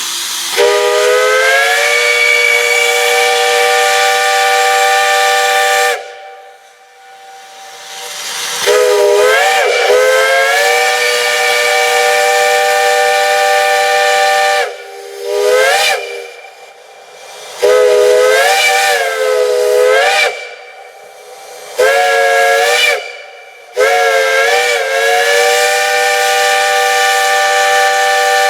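Large multi-chime steam whistle blown in six loud blasts, the first and last long and the middle ones shorter, each sounding several notes at once as a chord. At the start of several blasts the chord slides up in pitch and wavers before settling.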